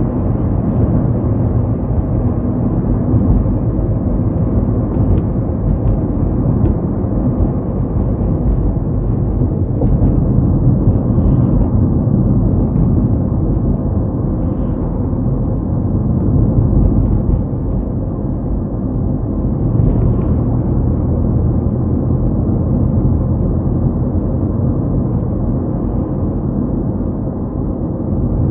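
A car driving along, its engine and tyre road noise making a steady low drone that eases off slightly about two-thirds of the way through.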